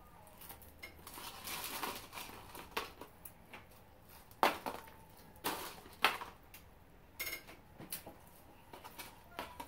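A person chewing French fries close to the microphone, with irregular mouth clicks and smacks; the sharpest come about halfway through.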